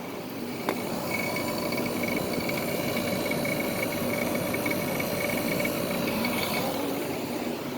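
Soleus Air ductless mini-split heat pump running in cooling mode: the compressor hums steadily over a rush of air, with several steady tones and a thin high whine that comes in about a second in and fades near the end. It sounds normal.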